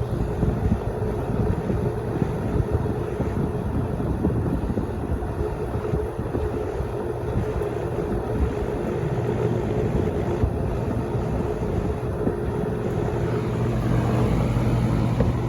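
Vintage Penncrest 100 box fan running on high: a steady rush of air with a constant motor hum, the airflow buffeting the microphone. The fan rattles a little even with fibre washers fitted.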